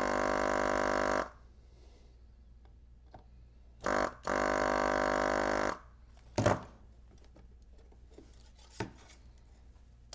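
S-993A desoldering gun's built-in vacuum pump buzzing steadily as the trigger is held to suck molten solder from a transistor's plated through-holes. It stops about a second in, then comes on again with a short blip and a second run of about a second and a half. A sharper knock and a small click follow near the end.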